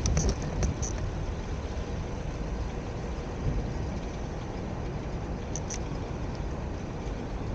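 Steady low rumble of a road vehicle's engine, with a few light clicks about a second in and again near six seconds.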